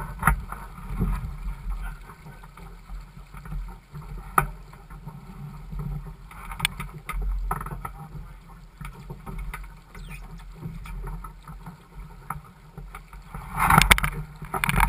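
Laser 4000 sailing dinghy moving in light wind: water washing along the hull and a low rumble of wind over the microphone, with scattered clicks and knocks and a louder surge of noise near the end.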